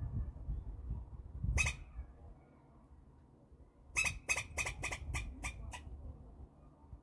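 Red squirrel giving harsh, scratchy calls: one call about one and a half seconds in, then a quick run of about seven, three or four a second, from about four seconds in, over a low rumble.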